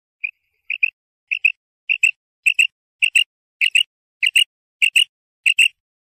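Female common quail calling: one short note, then about nine quick paired notes, a pair roughly every 0.6 seconds, growing louder over the first couple of seconds. This is the female's call used as a lure in quail hunting.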